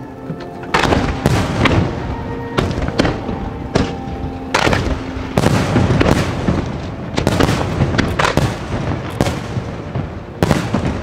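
Fireworks display: aerial shells bursting in quick succession, a steady run of sharp booms starting about a second in, with music playing underneath.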